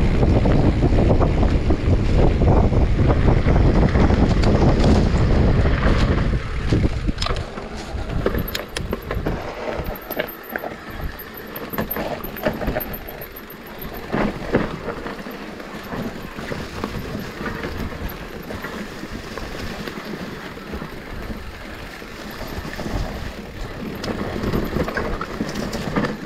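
Riding an electric mountain bike down a dirt trail: heavy wind buffeting on the action-camera microphone for the first six or seven seconds, then quieter tyre noise with sharp rattles and knocks from the bike over rough ground.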